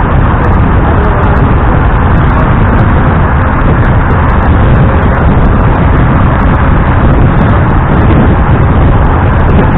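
Loud, continuous wind rumble buffeting the microphone of a camera on the roof of a moving LiAZ-677M bus, with the bus's travel noise underneath.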